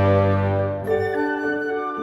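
Slow instrumental background music of held chords. A low bass note drops out just under a second in, and a new chord with a higher melody line takes over.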